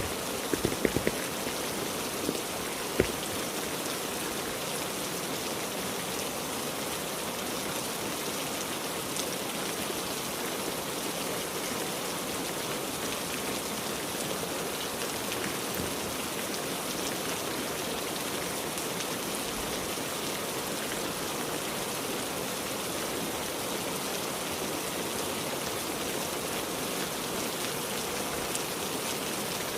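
Heavy rain falling steadily, with a few sharp knocks in the first three seconds.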